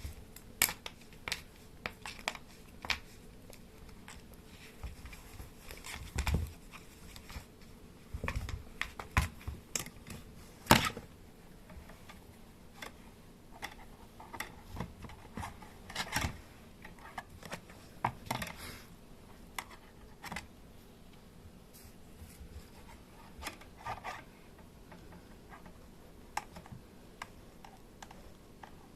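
Kittens moving and playing about a small room: scattered light clicks, taps and scratching, with a few louder knocks, the loudest about eleven seconds in.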